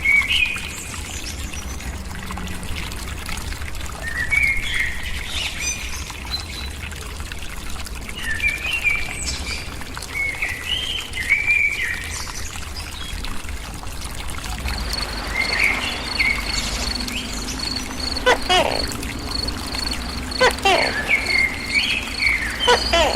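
Small birds chirping here and there, joined in the second half by a high, rapid pulsing trill and a few short, steeply falling sweeps near the end.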